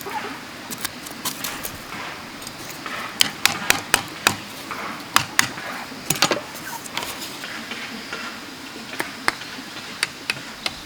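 Irregular sharp knocks and taps of a tool working bamboo, coming in bunches: several quick strikes in the middle and a few more near the end.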